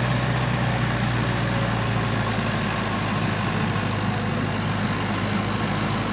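Proto-class trial truck's engine running steadily at low revs as the truck crawls over a dirt mound, a constant low hum.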